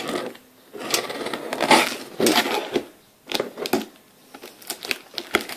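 Small knife slicing through packing tape and cardboard on a parcel: irregular scratchy rasping cuts, a second or so each with short pauses, and a few sharp clicks.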